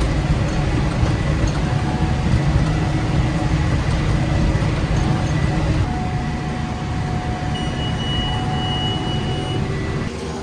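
Tractor and round baler running steadily under load while baling hay. A high steady beep sounds for about two seconds near the end.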